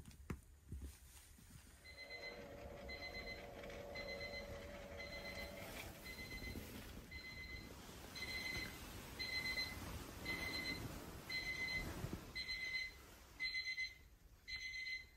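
Electronic alarm beeping a wake-up signal in short, evenly spaced beeps, about one to two a second, which grow louder about halfway through. A single click of the touch light switch comes just before.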